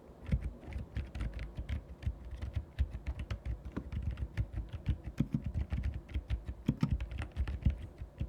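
Ajazz AK820PRO mechanical keyboard typed on quickly, fitted with its earlier, louder switches: a fast, uneven run of key clacks, each with a low thock.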